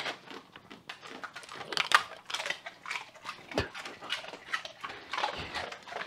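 A dog chewing a treat, with irregular crunching clicks.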